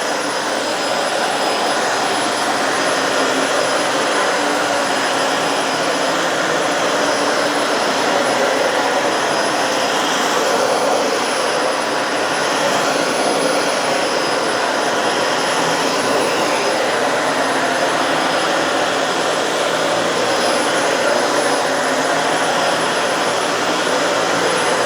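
Dyson Slim Ball upright vacuum cleaner running steadily as it is pushed over carpet: an even rush of air with a thin, steady high whine on top.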